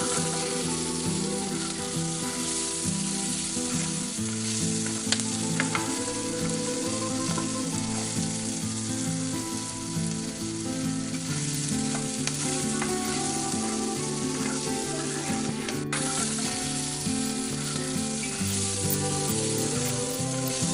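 Tomato chaat mixture frying and sizzling steadily in a miniature pan, with a few light clicks as it is stirred.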